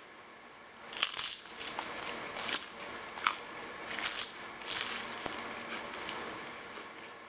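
Puffed rice cake being bitten and chewed: a series of crisp crunches starting about a second in, loudest over the next few seconds and fading toward the end.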